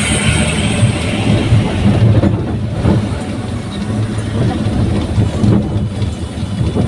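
Daihatsu Gran Max pickup on the move: its engine and aftermarket exhaust give a steady low drone, under a hiss of road and wind noise.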